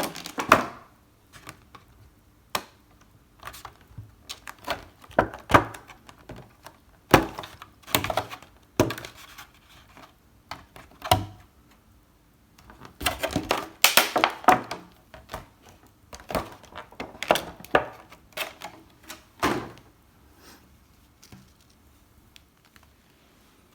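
Packaging of a Pokémon trading card collection box being handled and opened: scattered clicks, taps and crinkles of plastic and cardboard, with a denser burst of rustling in the middle.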